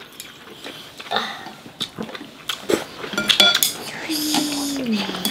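Mealtime sounds of noodle soup being eaten: chopsticks and spoons clicking against glass bowls and noodles being slurped. Near the end a low voice-like sound slides down in pitch for about a second.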